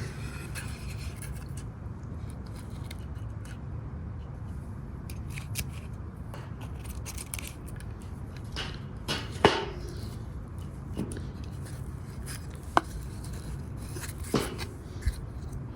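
Handling noises from layered shooting targets being looked over: a few scattered scrapes and sharp clicks over a steady low background rumble.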